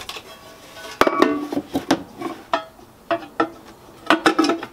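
Metal clinks and knocks as a Chinese diesel air parking heater is set into a Webasto sheet-metal mounting bracket. A sharp knock comes about a second in, followed by several lighter, ringing clinks.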